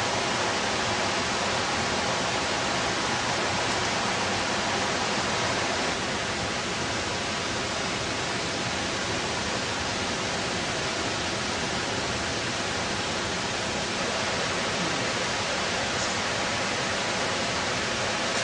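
Steady rush of running water over rocks, even and unbroken.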